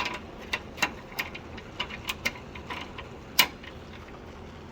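Irregular sharp metal clicks and ticks of mortise lock parts being handled and fitted back together, with one louder click about three and a half seconds in.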